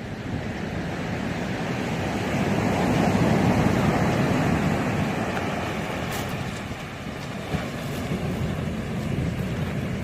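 Sea surf breaking and washing up a sandy beach, a steady roar that swells to its loudest about three to four seconds in, eases off around seven seconds, then builds again with the next wave.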